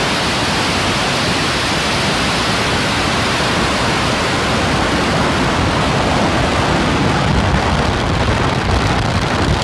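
Starship SN8's three Raptor rocket engines firing at full thrust in the first seconds after liftoff: a loud, steady rushing roar with deep rumble underneath. The low rumble grows stronger in the last few seconds.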